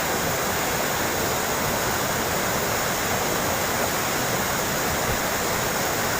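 Water trickling and splashing steadily, an even rush with no pauses.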